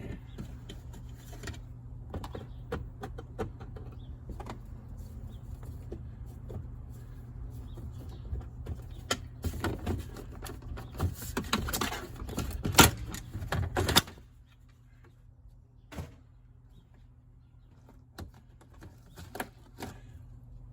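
Interior trim parts of a stripped C4 Corvette being handled and pulled loose by hand: scattered clicks, knocks and rattles, busiest and loudest from about nine to fourteen seconds in. A steady low hum under them stops abruptly about fourteen seconds in, leaving only a few faint clicks.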